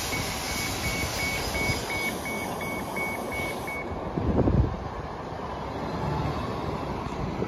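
A bus's warning beeper sounding rapid beeps, about three a second, over a steady hiss of air, both stopping about four seconds in. A low rumble swells briefly about half a second later, over the steady noise of idling buses.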